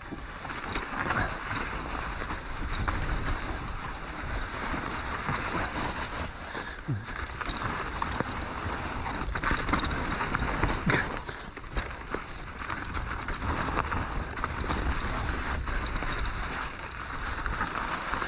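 Haibike Nduro e-mountain bike riding downhill over a snowy forest trail: a steady rush of tyre and wind noise with frequent rattles and knocks from the bike over bumps, and a couple of short squeaks.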